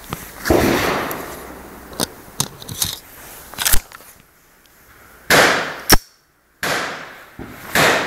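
Sharp metallic clicks and clacks from handling and loading a Browning Buck Mark .22 pistol, with rustling between them. There are several small clicks, then louder cracks about four and six seconds in and again near the end.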